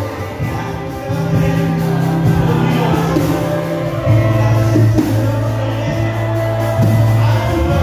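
A live worship band plays with electric guitars, keyboard and bass, and a voice sings over it. The bass holds long notes that change about a second in and again about four seconds in.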